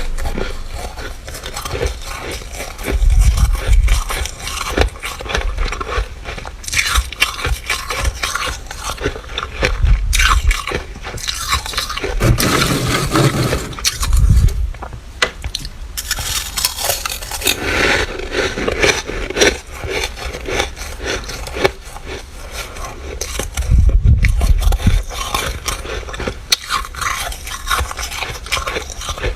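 Freezer frost being scraped up and crunched between the teeth: a dense run of crisp, irregular crunches and scrapes from flaky, squeaky frost, with a few low thumps now and then.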